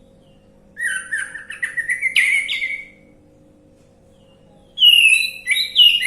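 Orange-headed thrush singing: two quick phrases of clear whistled notes, the first about a second in, a run of notes climbing in pitch, the second near the end.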